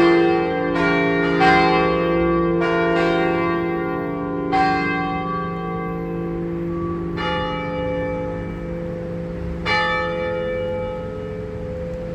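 Church tower bells ringing in a full peal, struck irregularly, each strike leaving a long ringing hum that overlaps the next. The strikes come less often toward the end.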